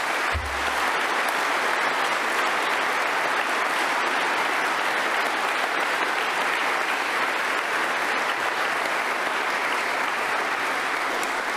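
A large crowd applauding, long and steady, dying down near the end.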